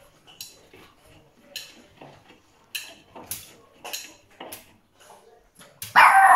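A shih tzu scrabbling at a blanket and the washing machine door with its paws, a string of short scratching sounds. About six seconds in comes one loud yelping bark that slides down in pitch: the dog's tantrum at its blanket being in the wash.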